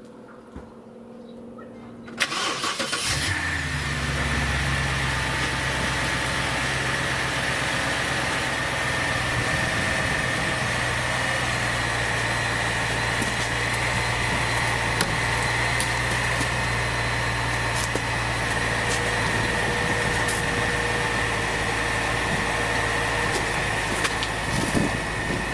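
BMW X5 E70 engine cranking and catching about two seconds in, then idling steadily with a faint high whine over the idle.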